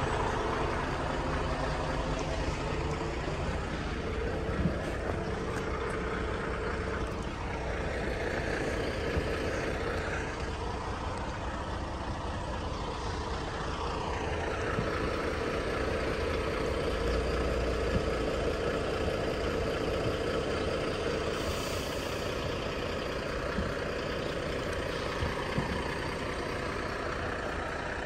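Heavy diesel engines running close by, a steady drone with a held humming tone that stops about three-quarters of the way through, and a pitch that slides up and down in the middle.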